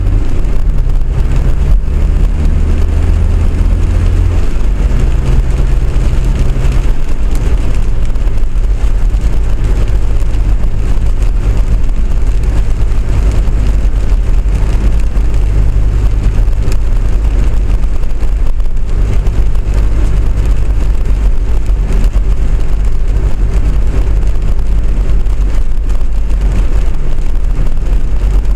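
A tram running along its line: a steady low rumble with a motor hum whose pitch shifts several times in the first seven or so seconds, then holds.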